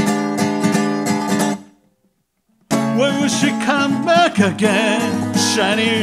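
Acoustic guitar strummed in a steady rhythm, about four strums a second, then cutting off to silence for about a second. It comes back with a man singing a melody over the strummed guitar.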